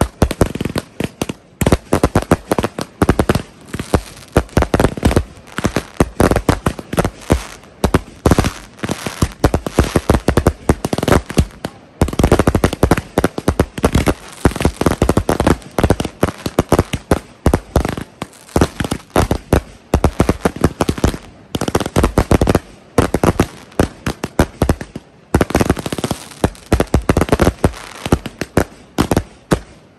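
Consumer fireworks finale: 500-gram cakes and canister shells launching and bursting in a rapid, nearly continuous barrage of overlapping booms and crackle.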